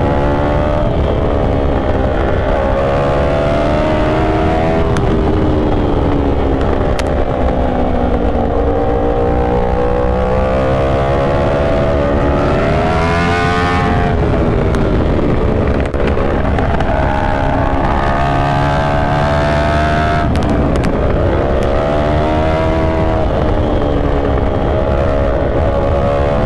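Yamaha R1 inline-four engine under way, its pitch rising and falling over several seconds at a time as the rider rolls the throttle on and off. It climbs highest about halfway through, then drops.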